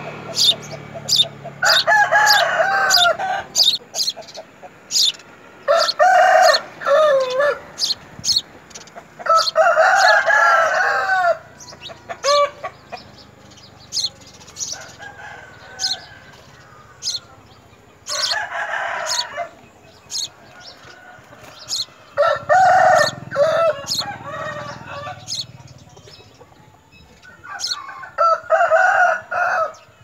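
Domestic chickens calling in six separate bursts of one to two seconds each, with many short sharp high ticks in between.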